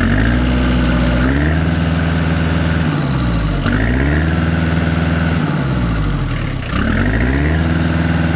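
Kubota B2150 tractor's diesel engine running with its carbon-clogged exhaust screen cleared and no tailpipe fitted, revved up three times and dropping back toward idle between revs.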